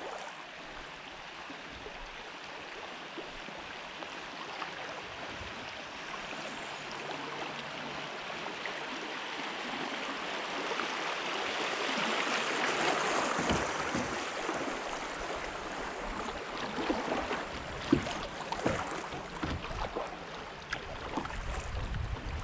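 Fast, shallow river rapids rushing around a plastic sit-on-top kayak. The water noise swells to its loudest about halfway through as the kayak runs the riffle, then eases. A few sudden knocks come in the second half, the sharpest a little after that.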